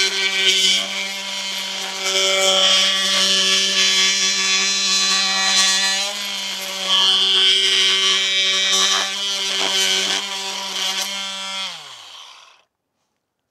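Cordless oscillating multi-tool (Milwaukee M18 BMT) running steadily with a blade cutting into dry wood, a buzzing hum with the rasp of the blade teeth in the wood. Near the end the tool is switched off and winds down, its pitch falling.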